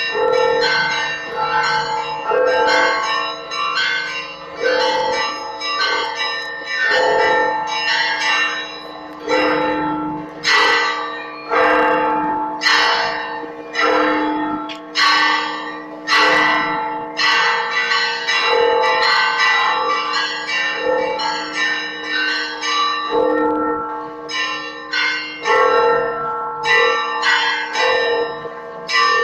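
Church bells of the Holy Sepulchre rung as a festive peal for the evening service: several bells of different pitches struck in quick, rhythmic succession, with the deeper bells' ringing sustained underneath. The strikes grow heavier through the middle, then ease back into the lighter pattern.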